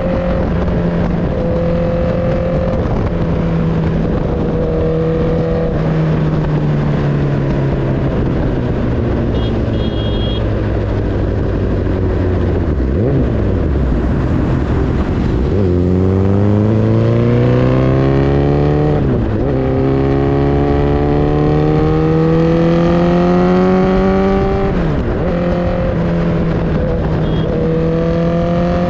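Motorcycle engine running at cruising speed under wind noise. Its pitch sinks as the bike slows for several seconds, then climbs hard through a couple of gear changes about halfway through, before settling back to a steady cruise near the end.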